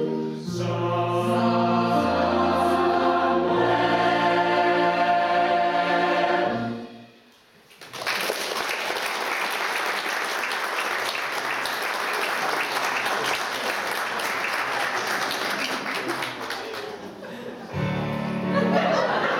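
A choir sings the last held chords of a song, which end about seven seconds in. After a brief pause the audience applauds for about nine seconds.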